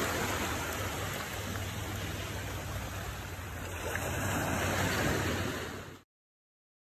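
Small waves breaking and washing up the sand in a steady rush, swelling a little about four seconds in, then cutting off suddenly near the end.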